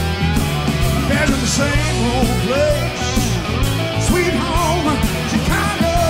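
Rock band music with a steady drum beat, bass and guitars, and a melody line that bends and wavers in pitch.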